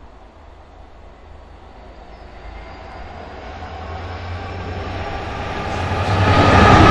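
Class 66 diesel locomotive approaching at the head of a freight train. Its two-stroke EMD V12 engine grows steadily louder, loudest near the end as it draws close.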